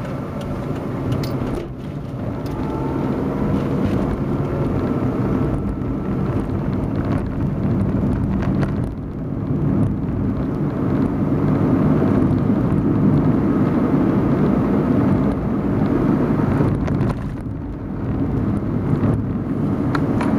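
Vehicle engine and road noise heard from on board while driving. The engine grows louder through the middle and drops briefly a few times.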